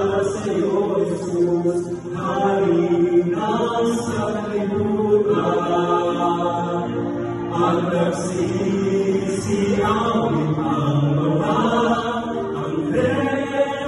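Male vocal quartet singing together in harmony, the four voices sustained and continuous.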